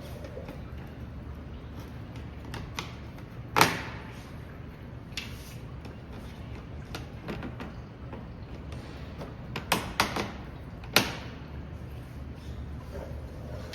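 Plastic push clips being pried out of a car's trim panel with a clip removal tool. There are a handful of sharp snaps: the loudest comes about three and a half seconds in, and three come close together around ten to eleven seconds in, over a steady low hum.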